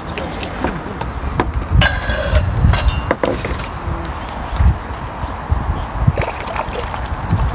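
Hooked crucian carp splashing at the water's surface as it is played to a landing net, with short clinks and knocks of the tackle.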